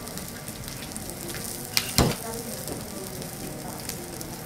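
Matsusaka sirloin steak sizzling on a steel teppanyaki griddle, with a fine crackle of spitting fat. Two sharp knocks close together about two seconds in.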